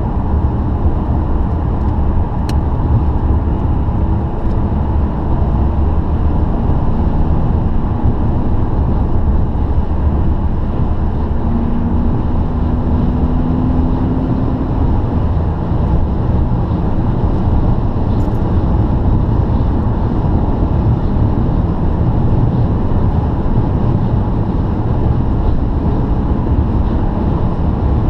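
Steady road and engine noise of a car cruising at motorway speed, heard from inside the cabin.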